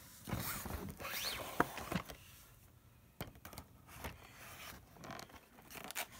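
A cardboard toy box being handled and cut open with scissors: scraping and rustling strokes, loudest in the first two seconds, then quieter scattered clicks and scratchy snips as the blades work into the cardboard flap.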